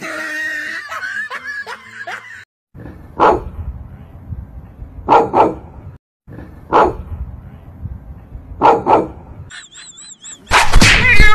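Dog barking, about six short barks, some single and some in quick pairs, over a light background hiss. Near the end a loud scream cuts in.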